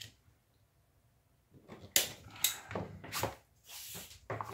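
Workbench handling noise: a quiet start, then a run of sharp knocks and clatter from about a second and a half in as a utility knife is set down and a long leather strap is moved on the bench, with a brief scraping rustle near the end.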